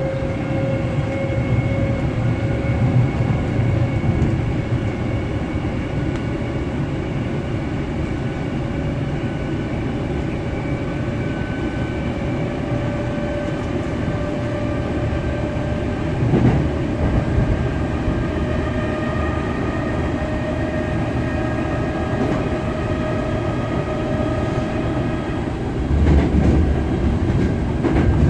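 Hankyu 7000-series electric train running between stations, heard from inside the carriage: a steady rumble of wheels on rail under a faint motor whine that slowly drifts in pitch. The rumble grows louder near the end.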